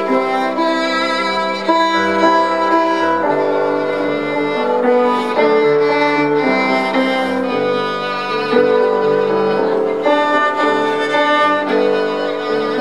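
Violin playing a slow melody of held notes, each lasting about a second.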